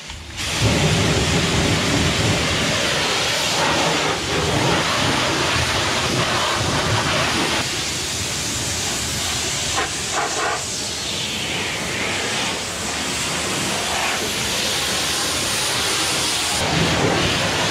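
Pressure washer spraying a steady jet of water onto metal calf-pen panels and bedding, starting about half a second in.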